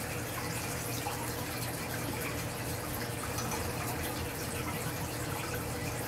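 A canary bathing in a shallow stainless-steel dish of water, dipping and flicking its wings: a continuous run of small splashes and drips. A steady low hum runs underneath.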